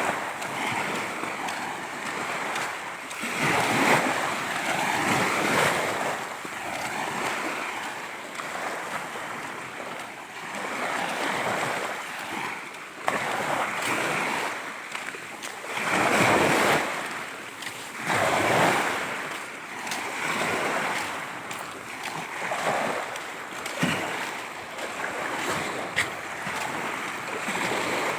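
Ocean waves breaking on the shore in repeated surges every few seconds, each swelling and then washing back, the loudest about four seconds in and again around sixteen seconds in.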